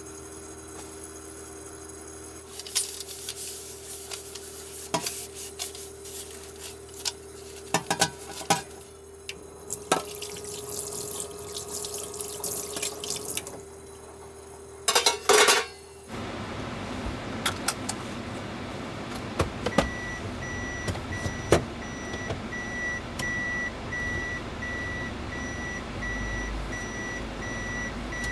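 Washing up at a small stainless-steel camper sink: clinks and clatter, then a short burst of running water. After that comes a steady vehicle rumble inside the Toyota Hiace cab, with a rapid repeating beep starting about two-thirds of the way in: the reverse-gear warning beep.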